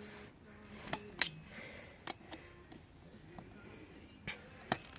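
Hand wrench clicking against a bolt, several sharp, irregularly spaced clicks.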